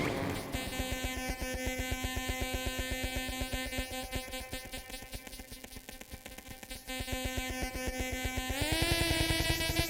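Nunomo Qun mk2 synthesizer playing a buzzing electronic drone: a dense stack of steady tones over a fast, even pulse. It fades somewhat in the middle, then swells again as the low tone slides up in pitch near the end.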